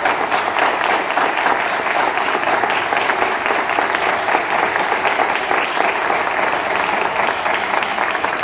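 Audience applauding steadily, many hands clapping together, with one person clapping close by.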